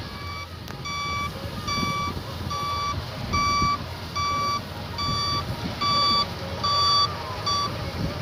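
Electronic warning beeper on a combine harvester sounding about nine times, one steady high beep a little under once a second, over the low rumble of the machine.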